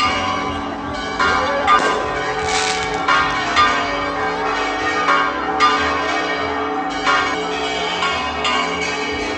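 Church bells pealing, several bells struck again and again so that their tones overlap and ring on without a break.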